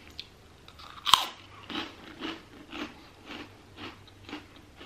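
A crisp puffed crab cracker (prawn-cracker style) bitten off with one sharp crack about a second in, then chewed with crunches at about two a second.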